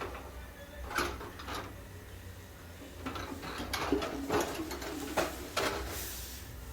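Irregular metal knocks, clicks and clatter from a gas geyser being taken apart as its water tank is worked out of the casing, busiest in the second half.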